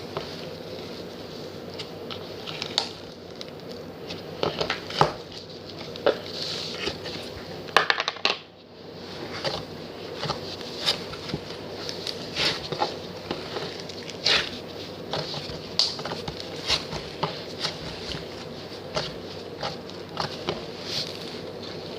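Slime being squished and poked by hand, giving irregular sticky clicks and crackles, with a short lull about eight seconds in.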